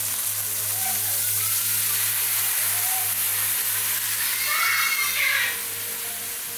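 Fish frying in hot oil in a pan: a steady sizzle. It gets louder about four and a half seconds in, then drops off sharply.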